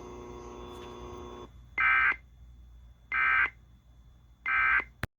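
Emergency Alert System end-of-message signal: three short digital data bursts with a warbling buzz, about a second and a half apart, closing the alert broadcast. Before them a steady broadcast hum cuts out about a second and a half in, and a sharp click near the end is followed by dead silence.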